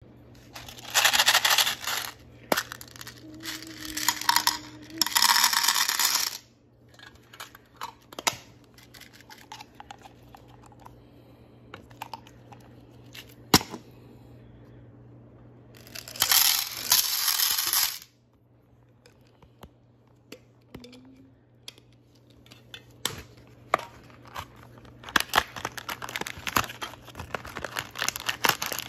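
Small hard candies poured in several bursts into a plastic serving platter, rattling against the plastic, with scattered clicks and taps between pours. Near the end, packaging crinkles and taps as a cardboard candy box is opened.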